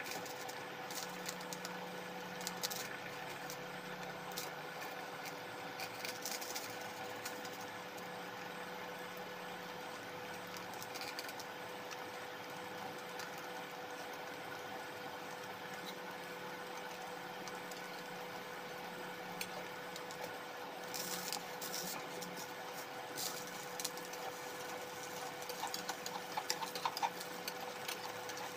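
Induction cooktop running with a steady hum under a frying pan of oil and batter, with faint sizzling from the pan. A few light clicks of metal tongs on the pan come near the end.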